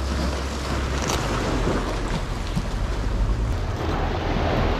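Sea waves washing against the rocky shore, a steady rushing noise, with wind rumbling on the microphone.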